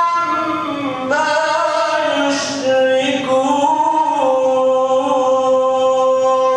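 A man reciting the Quran in Arabic in the melodic tajwid style, drawing out the vowels over gliding pitches. He holds one long, steady note through the second half.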